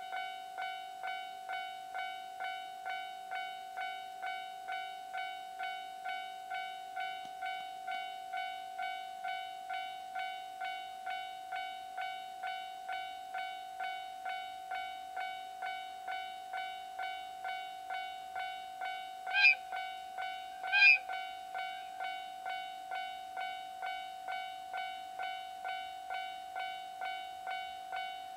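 Level-crossing warning bell starting suddenly and ringing steadily at about two strokes a second. About twenty seconds in, the approaching DE10 diesel locomotive sounds its horn in two short blasts, the loudest sounds here.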